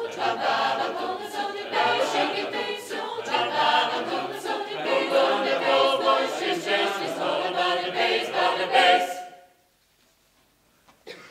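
Mixed youth choir singing a cappella in several parts, rising to a loud final chord that cuts off sharply about nine seconds in. Near silence follows, with one faint knock near the end.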